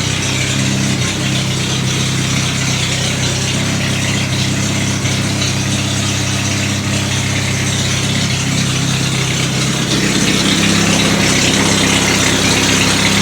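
Triumph Spitfire 1500's four-cylinder engine idling steadily through a straight exhaust, its note shifting slightly about ten seconds in.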